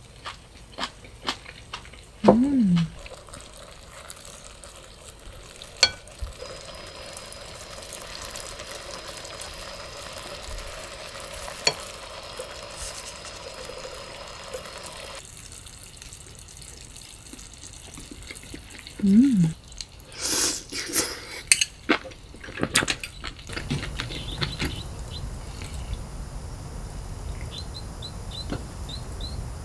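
Hot pot simmering in a pan on a portable gas burner, with scattered clicks of chopsticks against a bowl and a louder clatter of tableware about two-thirds of the way in. Near the end comes a run of small, bird-like chirps from a bottled drink.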